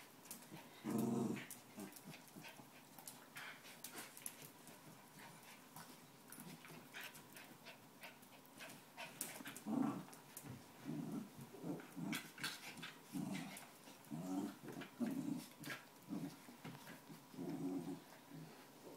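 Two West Highland white terriers play-fighting, giving short low growls: one loud one about a second in, then growls in quick runs from about halfway through. Scattered sharp clicks and scuffles of the scrambling dogs run underneath.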